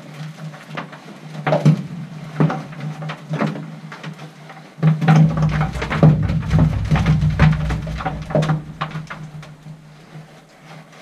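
Irregular sharp knocks and clinks of a rock hammer chipping ore samples from the rock face in a small mine working. The strikes come scattered at first and then fast and close together for a few seconds from about five seconds in, with a low rumble under them.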